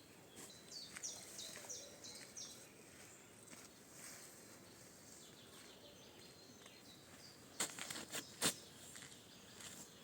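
Outdoor ambience with a bird singing a quick series of short, high, falling notes early on. About three-quarters of the way through comes a cluster of sharp clicks or knocks, the loudest sounds.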